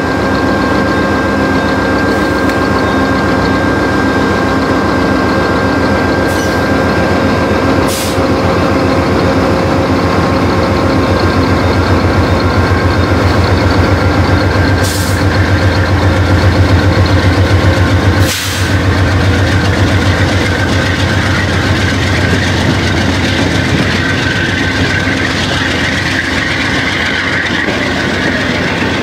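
VIA Rail passenger train #64 pulling out, its diesel engine throbbing under power with a steady whine over it as the cars roll past. A few sharp clanks come through, about eight, fifteen and eighteen seconds in.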